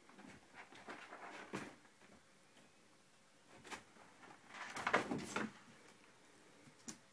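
Scuffling, rustling and soft thumps of a cat jumping about on a leather armchair and against a curtain, with the loudest bout about five seconds in.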